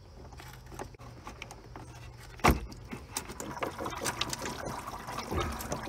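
Washer-fluid level sensor pulled from its pressure-fit seal in a plastic washer reservoir: a single sharp pop about two and a half seconds in as it comes free, then washer fluid dripping and splashing out into a catch bucket.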